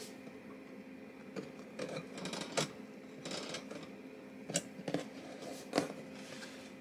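A metal wire cooling rack clicking and tapping as a baked loaf cake is turned over and set back down on it, with soft rustling of the crust against the wires. The clicks come irregularly, sharpest and most frequent in the second half, over a faint steady hum.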